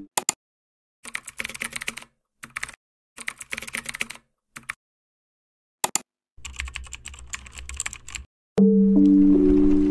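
Computer keyboard typing in short clusters of rapid key clicks, with silent gaps between them. Music with sustained notes starts again about a second and a half before the end.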